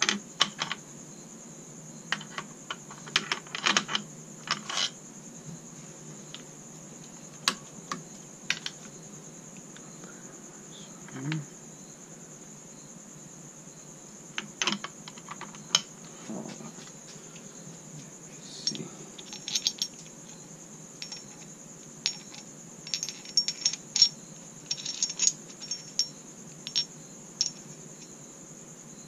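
Steel parts of an SKS rifle's bolt group clicking and clinking against each other and the receiver as they are handled and fitted, in irregular sharp metallic taps that come thickest near the end.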